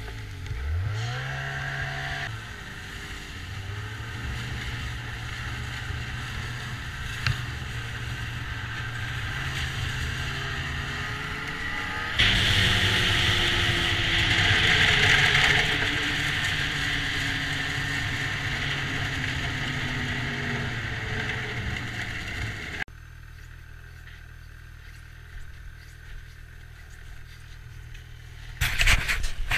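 Snowmobile engine running under way, its pitch dipping and climbing again in the first couple of seconds, with track and wind noise. A louder hissing stretch comes in suddenly about twelve seconds in, the sound drops off suddenly near 23 seconds, and loud rough noise comes in near the end.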